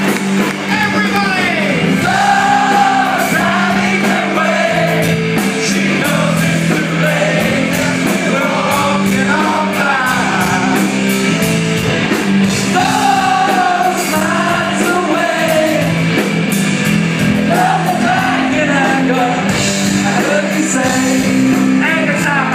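A man singing into a microphone over a live rock band, with electric guitar and drums backing him.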